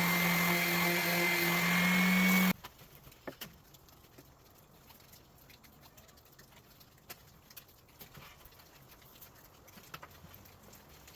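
Electric power tool motor running steadily with a high whine, switched off and stopping abruptly about two and a half seconds in; light clicks and taps of handling follow.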